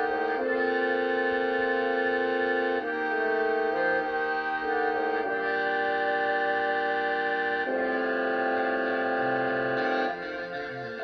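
Concert band music from a baritone saxophone concerto: sustained chords that change every two to three seconds, turning softer about ten seconds in.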